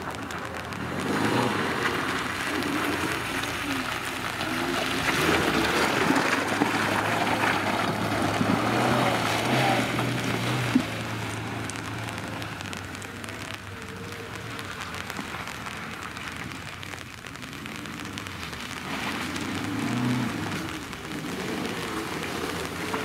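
Engine of an off-road vehicle running steadily under a loud, even hiss, with a single sharp knock about eleven seconds in.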